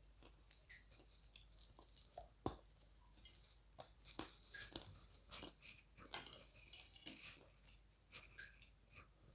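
Close chewing and crunching of hard, dry pieces of edible clay: faint, irregular crackles and crunches that come thicker in the middle.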